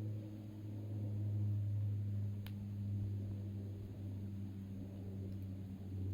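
A steady low hum, with a single sharp crackle from the campfire about two and a half seconds in.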